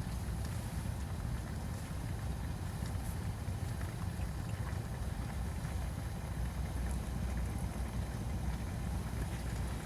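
Steady low rumble of wind buffeting the microphone, with a few faint scattered ticks.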